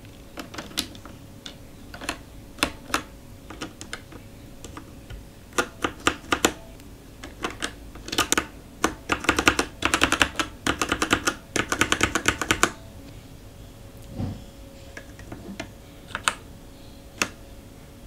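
Motospeed GK82 mechanical keyboard with linear red switches being typed on: scattered single keystrokes, then a fast flurry of key presses for about four seconds past the middle, then a few separate presses again.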